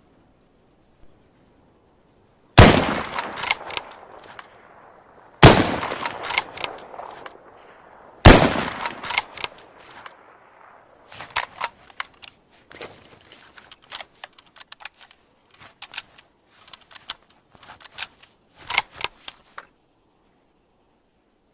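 Three shots from a Mosin-Nagant M91/30 bolt-action rifle in 7.62×54mmR, each loud crack trailing off over a second or more, about three seconds apart. After the third shot comes a long run of sharp clicks and knocks.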